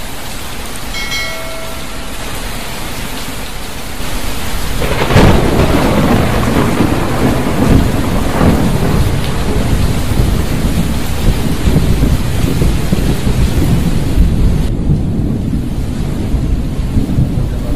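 Heavy rain pouring steadily. About five seconds in, thunder cracks loudly and rumbles deep and heavy for the rest of the time, over the continuing downpour.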